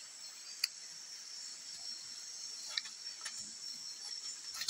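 Night insects chirring steadily, a high-pitched drone of several even tones. A sharp click about half a second in and a few faint knocks around three seconds in come from handling close by.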